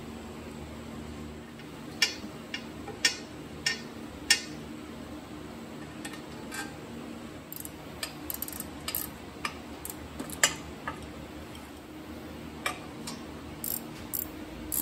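Scattered sharp metallic clicks and clinks of bolts and the aluminium intake manifold being handled and set on a Jeep 4.0 inline-six, over a steady low hum. Four loud clinks come close together in the first few seconds, then lighter, irregular ones, with one more loud one past the middle.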